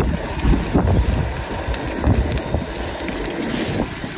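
Wind buffeting the microphone in uneven low rumbling gusts, with a few light clicks.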